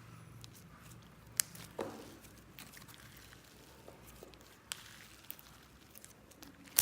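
Slime being handled and squeezed: scattered soft, sticky clicks and squelches, with a sudden loud noise right at the end.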